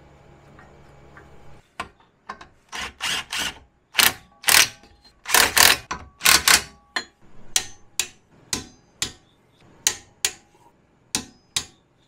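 Ratcheting socket wrench clicking in short bursts as the rear wheel hub's mounting bolts are run down and tightened. The first runs of clicks are longer, and the later ones are single short clicks about two a second.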